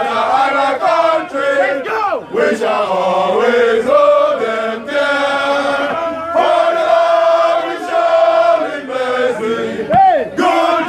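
A group of men singing their school anthem together in unison, with held notes and pitch glides.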